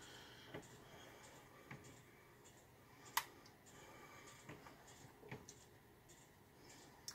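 Quiet room with a few faint, scattered clicks and taps of a ladle or spoon against a pot and bowl as soup is served, the sharpest one about three seconds in.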